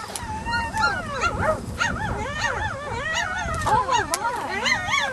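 A litter of three-week-old German shepherd puppies whining and yelping together, many short rising-and-falling cries overlapping without a break.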